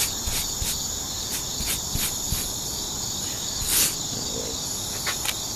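Crickets singing in the evening: a steady high-pitched trill with short chirps repeating over it every fraction of a second.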